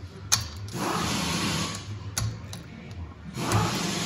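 A 10 mm socket wrench working a bolt on the engine: sharp clicks and rasping ratchet and metal scraping noises. The worn 10 mm tool is not gripping well.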